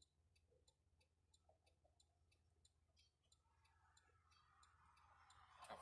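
Near silence, with faint, even ticking at about four ticks a second and a soft hiss building toward the end.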